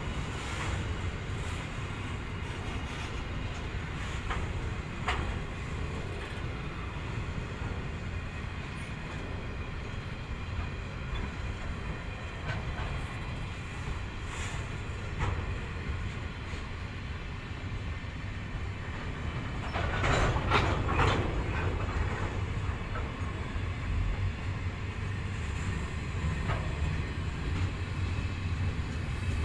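Grain hopper wagons of a long freight train rolling past: a steady low rumble of wheels on rail with scattered clicks as the wheels cross rail joints. It gets louder for a couple of seconds about two-thirds of the way through.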